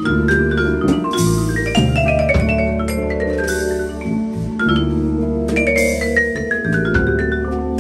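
Live jazz band with the vibraphone out front, played with mallets in two fast runs of notes that cascade downward in pitch. Electric bass, guitar and drums play underneath, with a cymbal wash every couple of seconds.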